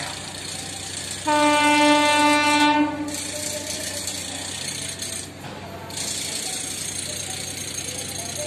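An approaching train sounds its horn: a single steady blast about a second and a half long.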